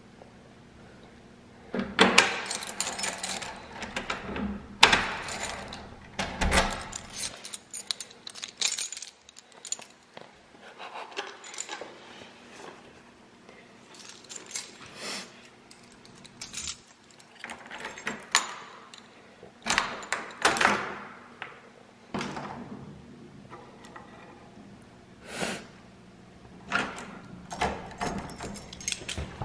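A bunch of keys jangling and clinking in irregular bursts as a key is worked into the lock of a wooden door.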